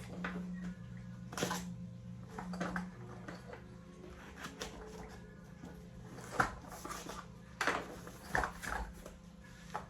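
Scattered clicks, knocks and rustles of small objects and packaging being handled, the sharpest about six and a half and seven and a half seconds in, over a steady low hum.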